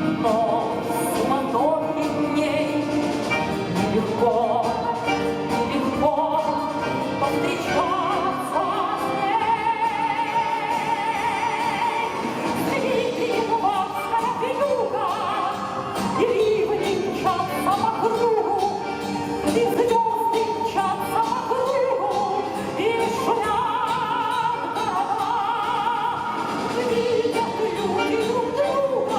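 Music: the song's accompaniment with a wordless sung melody in long, wavering held notes.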